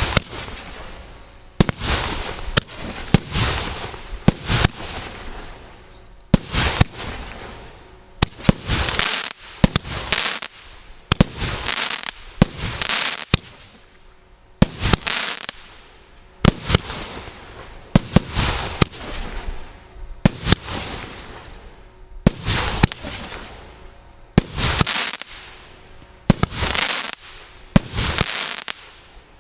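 Megapir 'Colorful Dreams' MB102 firework battery (cake) firing shot after shot: sharp reports, each followed by a fading hiss, coming in quick clusters with brief lulls.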